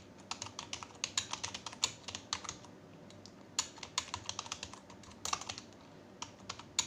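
Typing on a USB computer keyboard plugged into a mobile phone: runs of quick key clicks with short pauses between.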